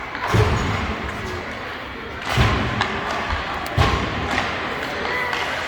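Three heavy thuds against the boards of an ice hockey rink, one just after the start, one about two seconds later and one more a second and a half after that, typical of the puck or players hitting the boards during play.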